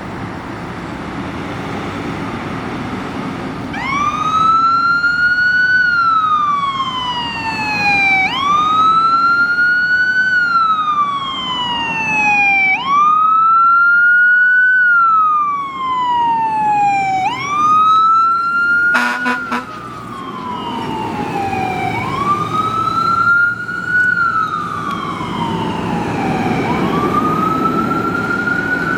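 Fire engine's siren starting up about four seconds in after some engine and road noise, then wailing: each cycle rises quickly and falls slowly, about once every four and a half seconds. A short horn blast comes about two-thirds of the way through.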